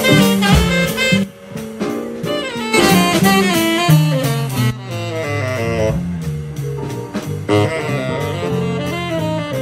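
Live jazz combo playing: a saxophone plays quick runs of short notes over drum kit and a low bass line.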